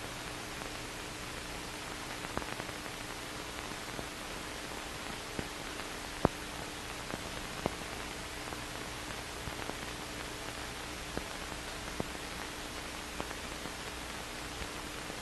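Steady hiss of an old film soundtrack with a faint steady hum and scattered clicks and pops, the loudest pop about six seconds in.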